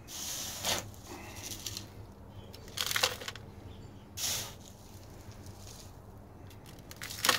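Plastic litter scoop scraping through sand on a wooden coop shelf and sifting it, in a few short scraping strokes.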